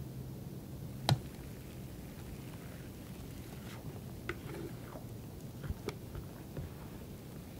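Thick coffee sponge-cake batter pouring from a bowl onto parchment paper in a square baking pan, with soft patter and small plops as it lands. A single sharp tap about a second in.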